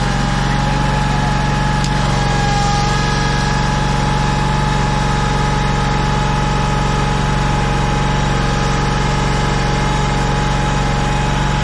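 Engine of a yellow mobile-home moving machine running steadily at constant speed, heard close up at its engine grille: a low hum with a steady high whine over it.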